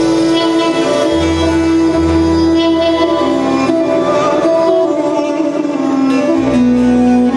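Instrumental interlude of Turkish folk music: a bağlama (long-necked saz) and a Korg Pa4X arranger keyboard playing a melody, with a low bass line coming in and out.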